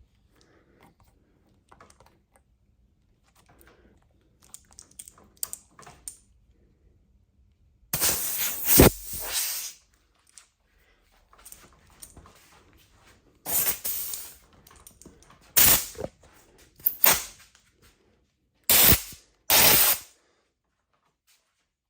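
Compressed air from a blow gun, let out in about six short bursts of hiss, the first and longest lasting about two seconds: air forced under a rubber bicycle grip to slide it onto the handlebar. Before the bursts there are faint clicks and handling noises.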